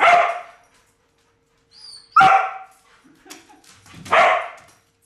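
Border Collie barking, three loud single barks about two seconds apart, over a faint steady hum.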